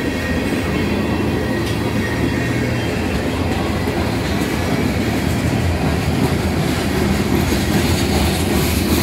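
Freight train's tank cars and boxcars rolling past at close range: a steady rumble of steel wheels on the rails.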